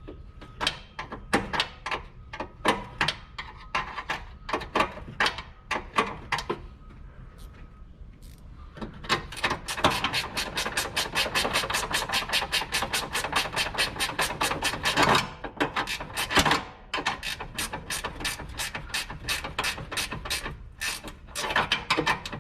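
Hand ratchet wrench clicking as it tightens the radiator's 10 mm bolts. The clicks come in uneven strokes at first, then as a fast, even run of about seven a second in the middle, then more bursts of clicking.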